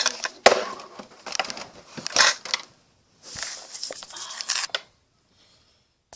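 Handling noise: a run of sharp clicks and rustling, with another rustling stretch about three and a half seconds in, then quiet near the end.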